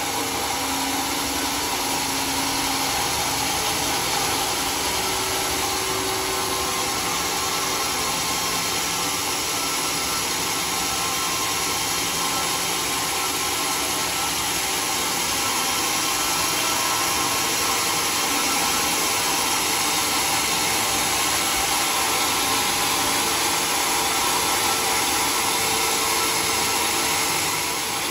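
Band sawmill running steadily, its band saw blade cutting lengthwise through a log to slice off planks.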